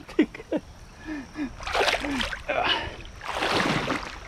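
Water splashing in two bursts as a person wades through a shallow river, with a few short voice sounds in the first couple of seconds.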